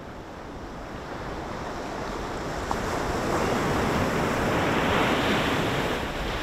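Ocean surf washing up onto a sandy beach, a steady rush of water that swells to its loudest about four to five seconds in.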